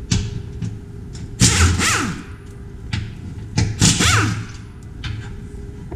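A power tool spinning up and winding down in two short bursts about two seconds apart, its pitch rising then falling each time, as bolts are run out. Light clicks and knocks of hardware between the bursts.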